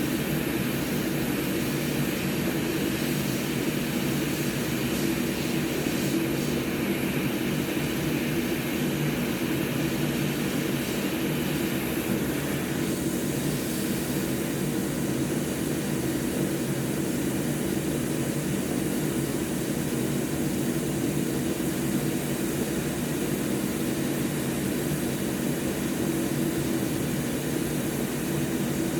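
Hot-air rework station blowing steadily while heating the solder joints of an Xbox Series X HDMI port to free it from the board. It is a steady hum with a hiss, and the hiss eases about twelve seconds in.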